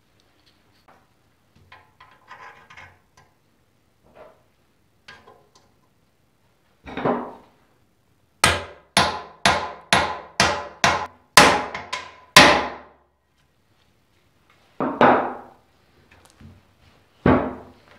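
Hammer blows on an impact socket used as a drift, driving a new steering-head bearing race into the headstock of a 1978 Honda ATC 90 frame. A single knock comes first, then a quick run of about eight sharp metallic strikes at roughly two a second, then two more single knocks near the end.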